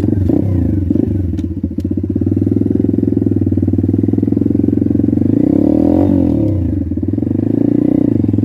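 Pit bike's single-cylinder engine running with a fast, even firing beat. The revs dip and climb again about six seconds in.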